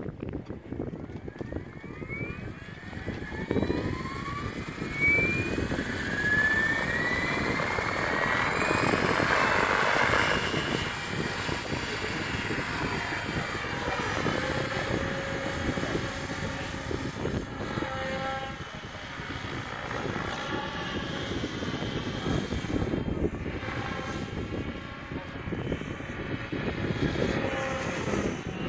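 Electric Align T-Rex 700 Pro RC helicopter spooling up, its motor and rotor whine rising in pitch over the first ten seconds or so. It then settles into a steady rotor and motor sound as the helicopter lifts off and flies.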